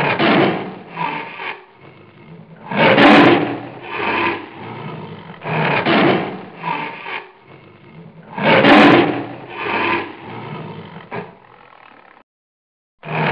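Trapped leopard growling and snarling in a series of harsh, rasping bursts, the loudest about three seconds in and again near nine seconds.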